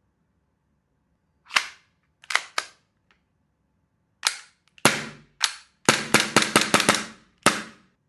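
Gas-powered M&P9 replica airsoft pistol firing BBs: sharp pops, first singly and in pairs with pauses between, then a fast string of about seven shots and one last shot.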